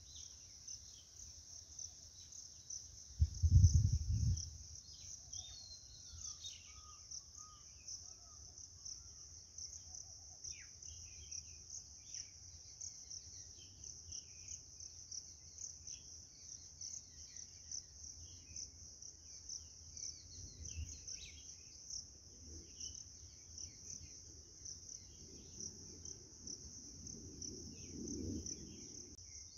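A steady high-pitched insect chorus with scattered bird chirps. A brief low rumble about four seconds in is the loudest sound, and a softer one comes near the end.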